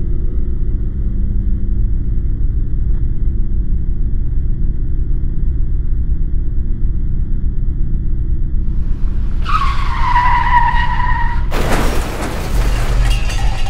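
Low droning rumble, then about nine and a half seconds in a tyre screech lasting about two seconds, cut off by a sudden loud car-crash impact: a sound effect of a car skidding and crashing.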